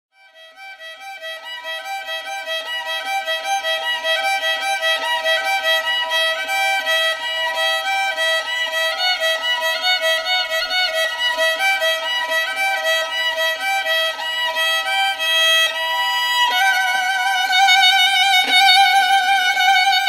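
Violin playing a quick melody of short notes, fading in from silence at the start; about sixteen seconds in it moves to louder long held notes with vibrato.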